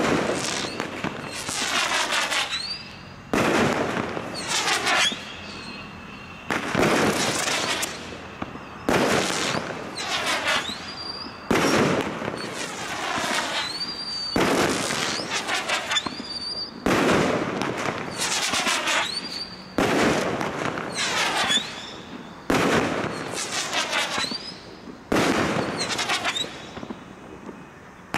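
High Voltage 16-shot firework cake firing shot after shot, about one every one to two seconds. Each shot is a sharp burst that trails off over a second or two.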